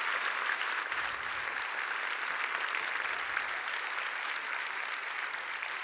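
Large audience applauding steadily, the clapping slowly fading near the end.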